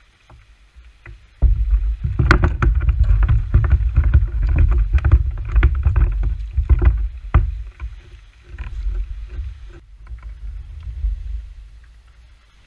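Clattering knocks and rubbing against a plastic fishing kayak and its gear close to the microphone, over a low rumble. The sound starts suddenly about a second and a half in, is loudest and busiest for the next six seconds, then comes in weaker patches.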